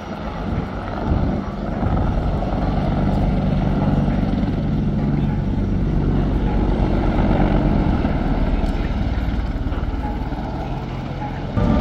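Aircraft engine drone from a low-flying display aircraft, a steady low hum that grows louder about two seconds in and jumps up suddenly just before the end.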